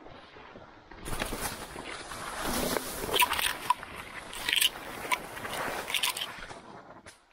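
A person pushing on foot through dense conifer undergrowth: branches brushing and scraping past, with twigs cracking and snapping. The rustling starts about a second in, with several sharp snaps through the middle, and fades near the end.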